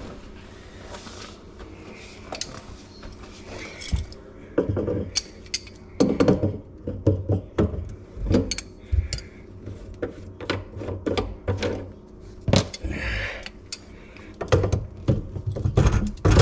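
Tongue-and-groove pliers working the plastic slip nuts of a leaking PVC sink drain trap to take it off: irregular clicks, knocks and scrapes of the metal jaws and loosened plastic drain parts.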